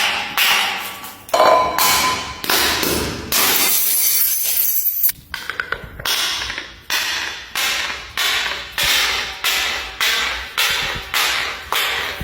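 Glass bottles tumbling down stairs, clinking and knocking against the steps. The strikes are irregular and crowded at first, then settle into an even run of about one and a half knocks a second.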